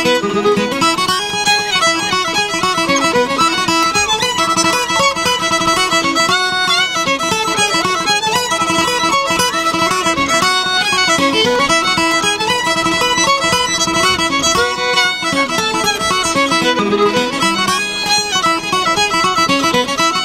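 Fiddle playing an instrumental tune with acoustic guitar accompaniment.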